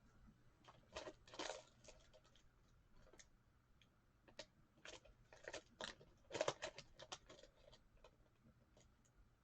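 Faint rustling and clicking of trading cards and their cardboard packaging being handled, in short bunches about a second in and again in the middle.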